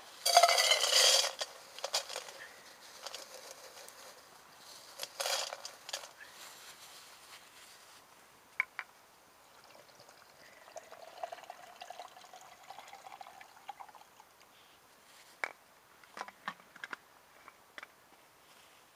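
Water being poured into a container, the filling sound rising slightly in pitch for a few seconds, with a few sharp clinks near the end.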